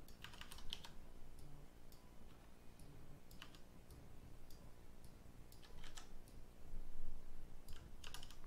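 Computer keyboard keys and mouse buttons clicking sporadically. There is a quick cluster of clicks about half a second in, a few single clicks through the middle, and another cluster near the end.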